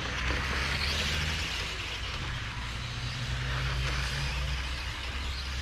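Electric Tamiya M-chassis radio-controlled cars running on an asphalt track, a hissing motor-and-tyre noise that swells twice as cars pass close, about one and four seconds in. A steady low hum runs underneath.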